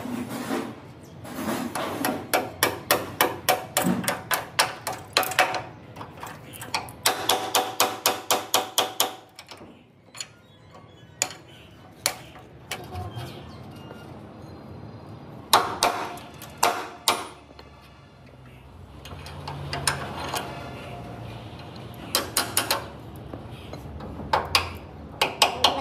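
A hammer striking metal in quick runs of blows, about four a second, with pauses between the runs.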